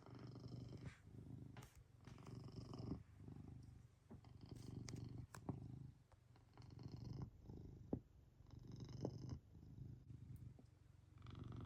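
Maine Coon cat purring faintly, the low purr swelling and fading in slow cycles of one to two seconds, with a few light clicks.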